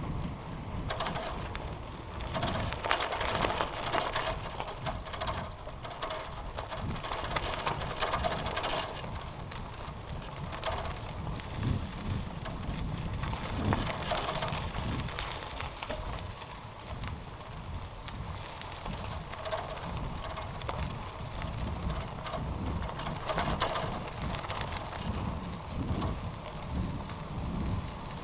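Bicycle in motion, its parts rattling and ticking unevenly, with wind rumbling on the microphone.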